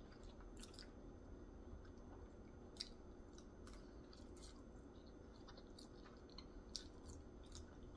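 A person chewing food with the mouth close to the microphone: faint, with scattered soft wet mouth clicks and a couple of sharper ones about three and seven seconds in.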